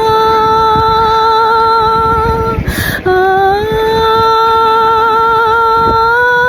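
A woman singing long, wordless held notes with a slight waver, as a sound-healing vocal chant. About two and a half seconds in she breaks off for a breath, then takes up a lower note and slides back up.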